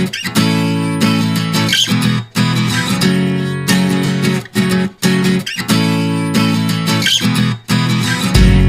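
Background music led by strummed acoustic guitar, with chords changing at a steady pace.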